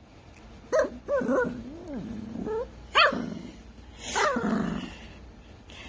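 Small white curly-coated dog vocalizing: about five calls, short sharp ones mixed with longer calls whose pitch wavers up and down.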